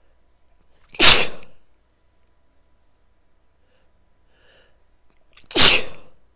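A woman sneezing twice, the two sharp, loud sneezes about four and a half seconds apart, each dying away within about half a second.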